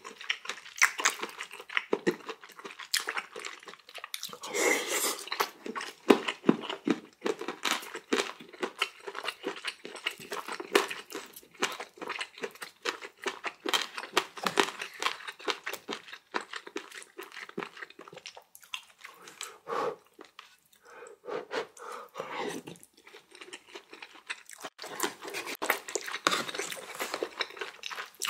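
Close-miked chewing and eating sounds from a mouthful of rice and pork belly in jjajang sauce: an irregular run of clicks and smacks, with a couple of brief pauses.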